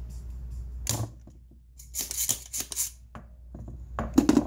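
Spring-loaded desoldering pump (solder sucker) snapping once as it fires over a solder joint, sucking solder off a MOSFET pin on an amplifier board. Scratchy clicks follow, then a louder clatter of knocks near the end as the pump is recocked and handled.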